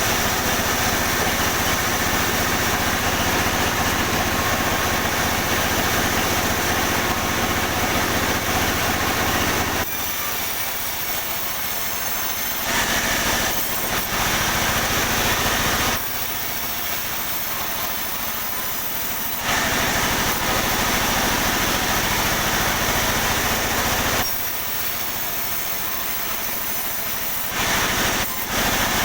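Sawmill saw cutting pine timber over the steady hum of the mill's drive motor. Long stretches of loud cutting noise drop back three times to the motor's hum alone for a few seconds between passes.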